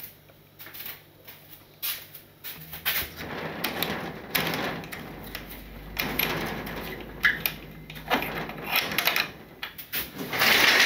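Curtains being pulled back and old wooden-framed sliding glass windows being unlatched and slid open: clicks and knocks from the latch and frames, and rattling and scraping as the sashes move in their tracks. Near the end comes a louder, sustained scraping rush as a window slides open.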